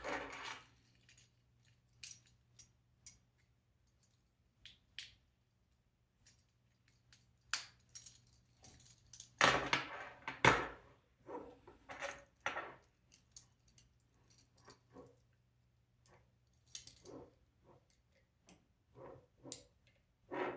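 Small hard kit parts being handled: scattered light clicks and clinks, with a longer burst of clattering and rustling about ten seconds in.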